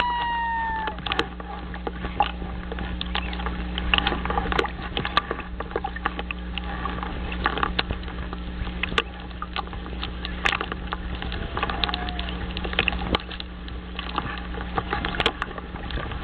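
Irregular sharp clicks and rustles of dry nest stems and grass close to the nest-camera microphone as a common loon shifts on its nest, over a steady low hum. A held bird call ends about a second in, and a brief faint call comes a little past the middle.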